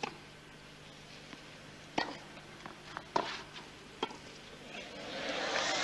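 Tennis ball struck by rackets four times in a rally, the last three hits coming quicker. Near the end the crowd noise swells into applause as the point ends.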